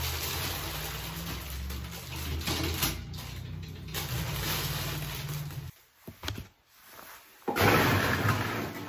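Plastic bags crinkling as they are handled, over a low steady electrical hum. The sound breaks off for a moment, then a louder rushing noise follows near the end.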